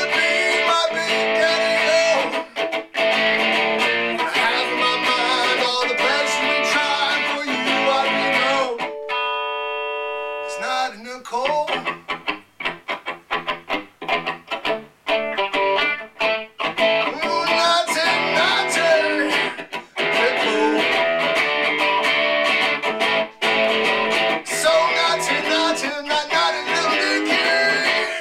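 Solo electric guitar playing an instrumental break: busy picked lines, a chord left ringing about nine seconds in, then short choppy strokes with brief gaps before full playing resumes.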